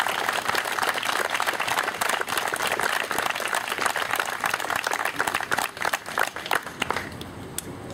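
A small crowd applauding, dense clapping that dies away to a few scattered claps near the end.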